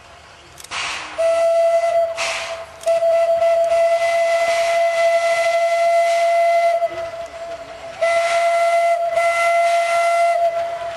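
Small steam locomotive blowing its whistle: one long steady blast of about five and a half seconds, then a shorter blast of about two and a half seconds, after a couple of bursts of steam hiss.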